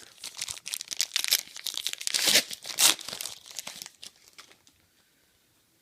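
A trading-card pack wrapper being torn open and crinkled by hand, with a dense crackling rustle that stops about four seconds in.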